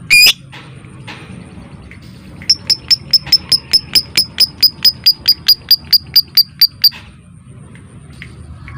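Lovebird calling: one short sharp call at the start, then a long run of about twenty sharp, high, evenly spaced calls, four to five a second, lasting about four seconds.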